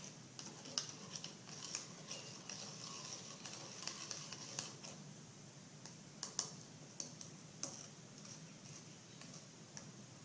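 A spoon stirring a bicarbonate of soda and detergent mixture in a container, making irregular light clicks and scrapes against its sides.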